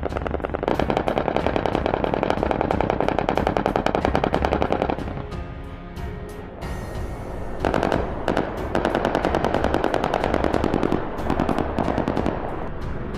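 Rapid automatic gunfire in two long bursts, with a short lull of a couple of seconds between them.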